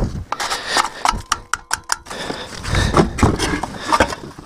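Gloved hands working a part loose on a fire-damaged snowmobile: a quick run of small clicks and knocks during the first two seconds, then irregular rubbing and knocking of parts being handled.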